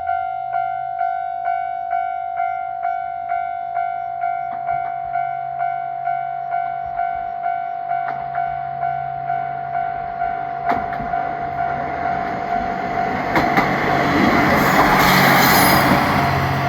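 Japanese level-crossing alarm ringing steadily, an electronic ding repeating a bit over twice a second. From about eight seconds in a train approaches and grows loud, with clacks of wheels over rail joints, and is passing close near the end.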